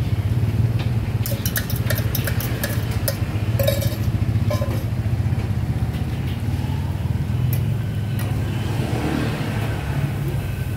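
Steady low engine rumble of passing street traffic such as motorcycles. Over it come a run of light, sharp metal clicks and scrapes in the first few seconds, from a fork working filling on a steel martabak griddle.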